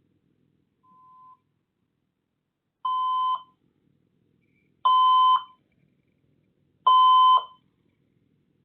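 Electronic beeps: a faint short beep about a second in, then three louder half-second beeps about two seconds apart, each one louder than the one before.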